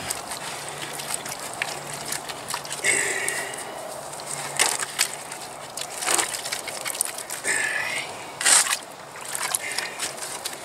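Wet hydraulic cement being stirred and scraped around a plastic bucket with a wooden stir stick: irregular scrapes and knocks of the stick against the bucket.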